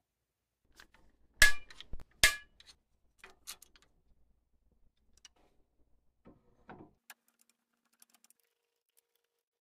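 Sharp clicks and knocks of metal scope-mounting hardware and tools being handled: two loud clicks about a second and a half and two seconds in, then scattered fainter taps, and a short rattle with a final click near seven seconds.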